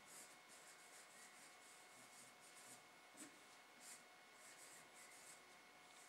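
Faint marker pen strokes on a whiteboard as a word is written: a string of short strokes, a couple a little louder about three and four seconds in.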